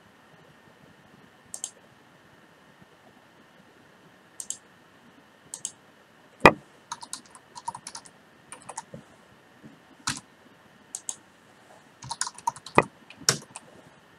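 Typing on a computer keyboard, mixed with single mouse clicks: a few lone clicks, then a run of keystrokes about halfway in and another near the end.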